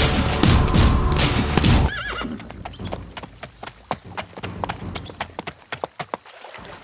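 Loud film score with sharp hits that cuts off abruptly about two seconds in. A horse then gives a short wavering whinny, followed by an irregular run of sharp hoof clip-clops.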